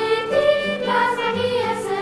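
Children's choir singing together, holding sustained notes in several voices.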